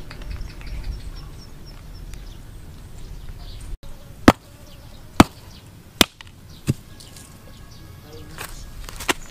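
Sharp knocks of something hard being worked against a rock. Four single strikes about a second apart begin about four seconds in, and a quick double strike comes near the end.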